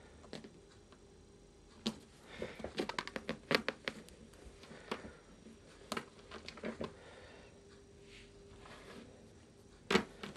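Quick taps, clicks and scratches on the back of a gaming chair as a cat bats its paws through the chair's mesh slot at a poking finger. There is a rapid flurry of taps about two to four seconds in, a few scattered ones after, and one louder knock near the end.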